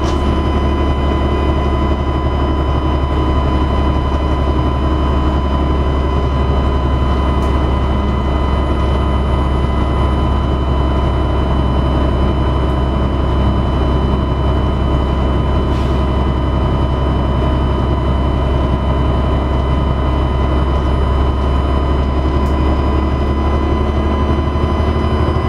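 Dennis Trident double-decker bus engine running steadily: a deep drone with a steady high turbocharger whine over it.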